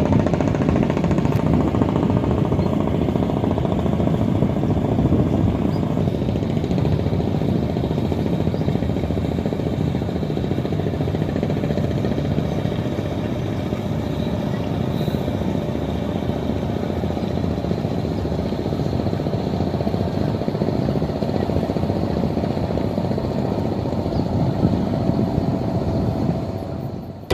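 A small fishing boat's engine running steadily at sea.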